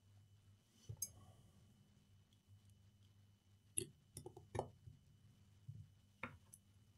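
Faint clicks and taps of an opened Samsung Galaxy S10's parts being handled and pressed back into place: a couple of sharp ticks about a second in, a cluster around four seconds in and one more after six seconds, over a faint hum.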